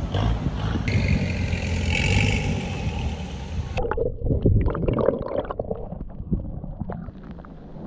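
Water around a camera plunged underwater. A loud rushing noise with a low rumble cuts off suddenly to a muffled underwater sound about four seconds in. Gurgling bubbles and small clicks follow as the camera bobs just below and at the surface.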